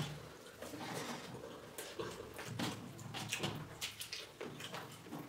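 Eating rice by hand from a steel thali: fingers mixing rice and curry against the metal plate, with chewing and mouth noises, in short irregular clicks and smacks.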